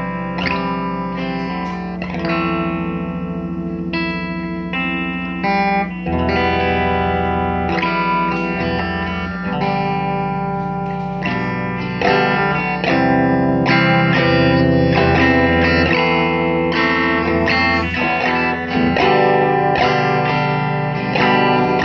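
Electric guitar played through a 1969 Elk Echo Pro-Sonic tube amp, freshly re-capped and fitted with new tubes and speakers. Picked single notes and chords ring over a held low note, and the playing gets louder about halfway through.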